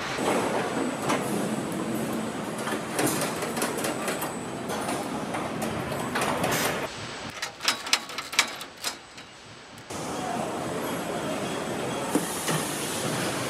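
Car assembly line noise: a steady din of machinery, with short bursts of hiss and a quick run of sharp metallic clicks and knocks about eight seconds in. Near the ten-second mark it drops briefly, then jumps back up to a steadier hiss.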